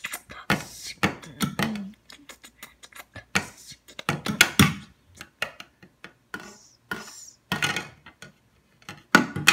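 A person making mouth noises: sharp clicks, hisses and short voiced bursts in an uneven string.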